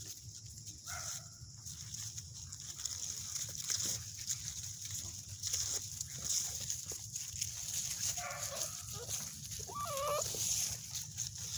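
A few short, wavering animal calls: one about a second in and two close together near the end, over a steady background hiss.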